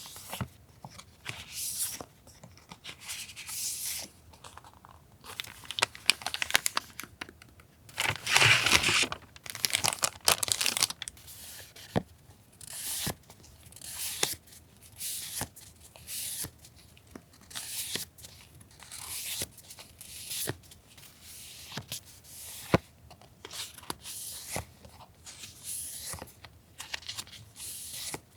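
Paper and plastic stationery packaging being handled, opened and torn: a string of short crinkling, tearing rustles with small sharp taps, and one longer, louder rustle about eight seconds in.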